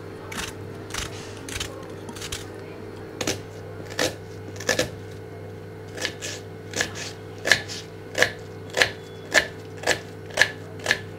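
Kitchen knife chopping onion on a wooden cutting board: a run of sharp, evenly spaced knocks, a little under two a second, that gets more regular about halfway through. Softer slicing strokes come before it, and a steady low hum runs underneath.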